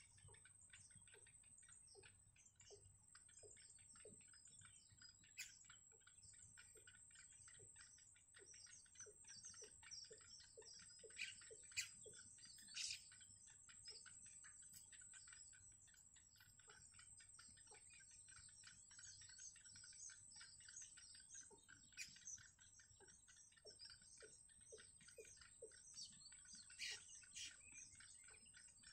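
Yellow bittern chicks begging in the nest: faint, rapid chirps and ticks, with a few louder chirps about twelve seconds in. A thin, steady high whine runs underneath.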